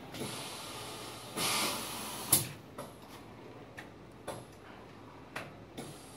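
Tablet press running a cycle: a rushing, hiss-like machine noise swells, then cuts off with a sharp clack a little over two seconds in, followed by a few lighter clicks.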